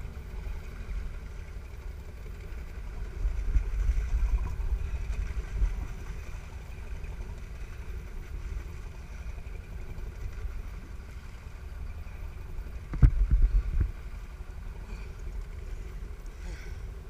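Sportfishing boat's engine running steadily, a low hum with a faint even whine above it. Low rumbles on the microphone swell up about three seconds in and again briefly near the end.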